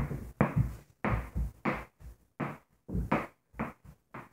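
A ball bounced over and over on a book held in the hand, about two bounces a second in a steady rhythm.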